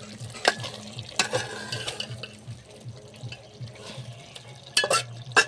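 Chicken being stirred in its own released juices in a handi pot: a wet, sloshing stir with sharp clinks of the utensil against the pot about half a second in, at about a second, and a quick cluster near the end, over a low steady hum.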